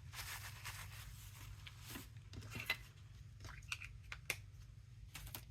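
Paper and craft pieces being handled and put away: soft rustling with scattered light clicks and taps, two of them sharper, over a steady low hum.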